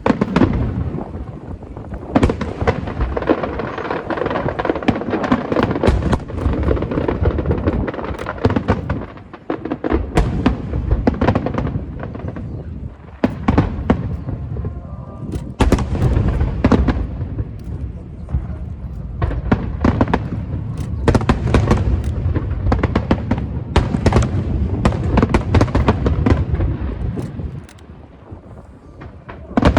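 Aerial fireworks bursting: a dense run of sharp bangs and crackles over a deep rolling boom, with brief lulls a few times before the bursts pick up again.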